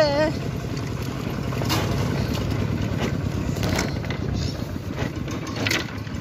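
Two-wheel walking tractor's engine running steadily while it pulls a wooden cargo trailer, with a few faint knocks along the way.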